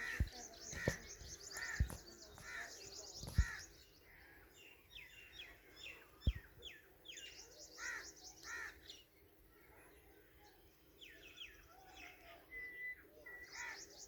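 Bird chicks cheeping: a call repeats about once a second, with fast high trills near the start and again near the end, and a run of quick falling notes in the middle. A few dull thumps come in the first few seconds.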